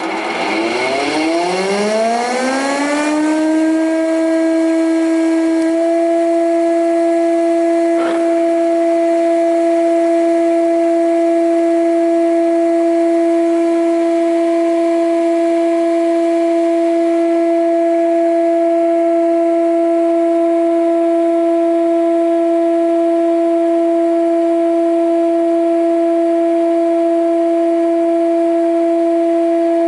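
IMA 40 thickness planer switched on: its motor spins up with a rising whine over about three seconds, then runs steadily at full speed with nothing being fed through. There is a single brief click about eight seconds in.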